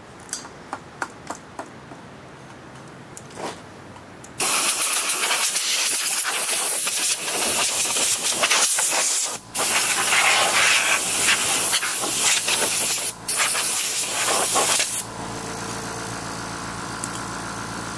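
Compressed air from a coiled-hose blow gun hissing in long blasts, with two short breaks, blowing dust and debris out of a propane mosquito trap. A few light handling clicks come first, and near the end a steady motor hum takes over.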